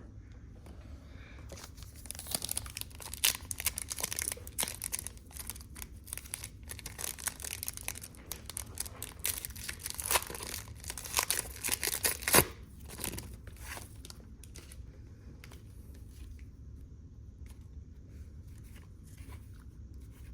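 Wrapper of a Panini Prestige football card pack crinkling and tearing as it is ripped open: a run of crackles, sharpest about twelve seconds in, then quieter rustling.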